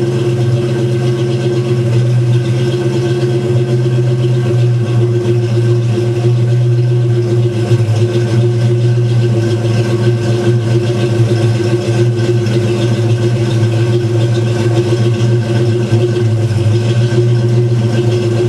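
1995 Ford Mustang GT's 5.0-litre (302) V8 idling steadily through Flowmaster mufflers, with no revs.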